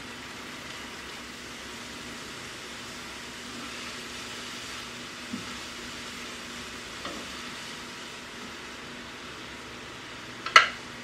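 Bean sprouts, carrots and bell pepper sizzling as they stir-fry in a ceramic sauté pan, turned with a wooden spatula. There are a couple of light knocks, and one sharp knock near the end.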